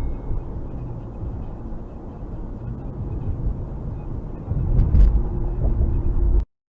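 Car driving in city traffic, heard from inside the car: a steady low road and engine rumble that grows louder about four and a half seconds in, with a short click near five seconds. It cuts off abruptly near the end.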